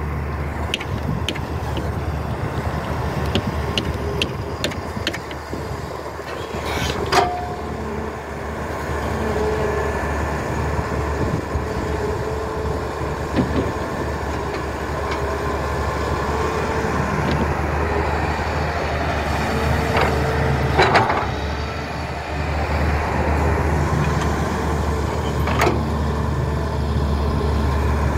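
SANY SY210C-9 crawler excavator's diesel engine running steadily under working load, its tone shifting as the hydraulics drive the boom and bucket. A few sharp knocks stand out, about a quarter of the way in, near two-thirds and again near the end.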